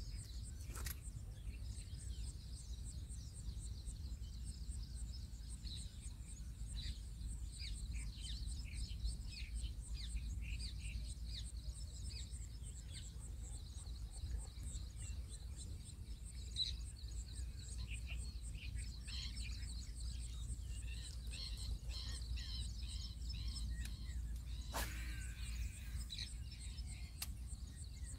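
Rural outdoor ambience: birds chirping on and off over a steady, high, even ticking and a low steady rumble, with one sharp click a few seconds before the end.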